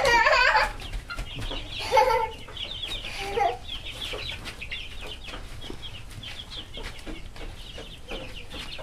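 A flock of chickens clucking and squawking as they are chased around the pen, with a loud, wavering squawk in the first second and a steady chatter of short calls after it.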